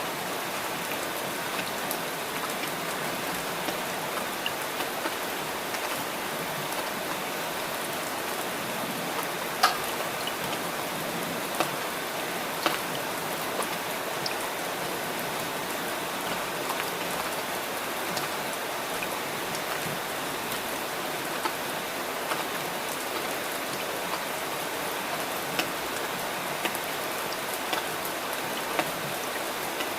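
Steady rainfall, an even hiss, with occasional sharper single drop hits standing out, the loudest about ten seconds in.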